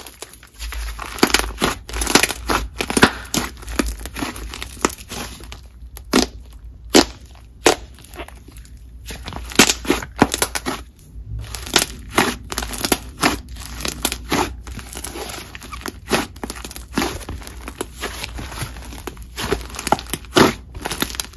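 Hands kneading, stretching and poking a thick, inflated clay snow-butter slime: irregular sticky clicks and crackles, with pops from trapped air pockets. The sound is a sizzly one and eases off for a few seconds near the middle.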